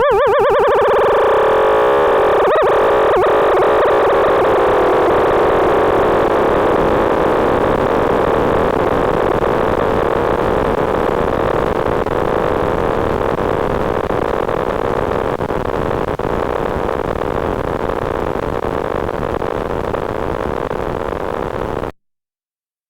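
Computer-generated tones from the Desmos graphing calculator: a warbling stack of tones quickly breaks up into a loud, harsh, dense buzz. The buzz holds for about twenty seconds, easing slightly, then cuts off abruptly.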